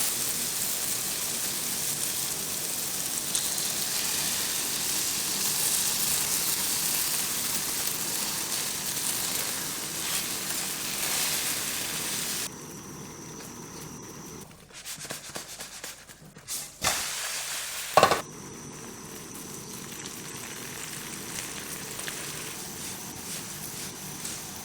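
Food sizzling in a hot frying pan, a loud steady hiss that cuts off abruptly about halfway through. After it come a sharp click and a louder knock, then a quieter, steady sizzle.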